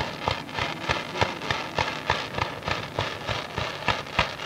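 Fireworks firing in a rapid, evenly paced string of bangs, about four a second, from ground-level fans of comets and low bursts, with a crackling hiss between the bangs.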